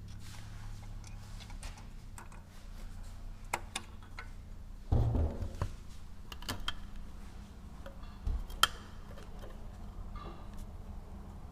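Scattered metallic clicks and knocks of hand tools on engine parts during an engine teardown. A heavier clunk comes near the middle and a single sharp click later on.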